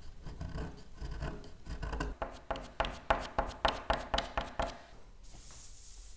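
Hand scraping and sanding of an old wooden door: a chisel blade scrapes along the wood, then sandpaper on a small block rubs back and forth over the door moulding in quick strokes, about four a second, which stop about five seconds in.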